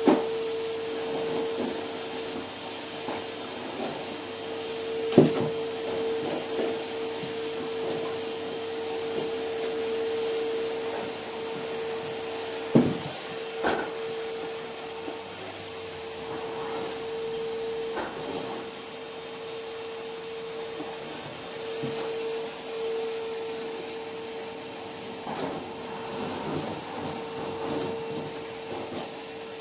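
Numatic Henry vacuum cleaner running steadily with a constant hum, with a few sharp knocks, the loudest about five seconds in and again about thirteen seconds in.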